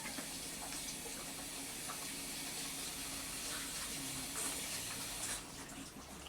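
Water running steadily, then cut off abruptly about five seconds in.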